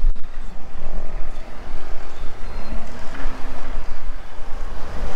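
Wind buffeting the camera microphone: a loud, uneven low rumble that rises and falls in gusts.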